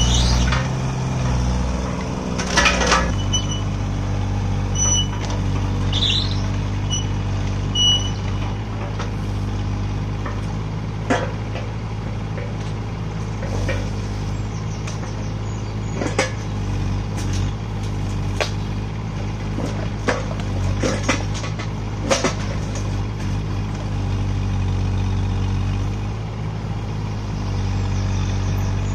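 Kubota U17-3 mini excavator's diesel engine running steadily while the arm works, its note shifting about three seconds in, with scattered knocks and clanks from the bucket and thumb.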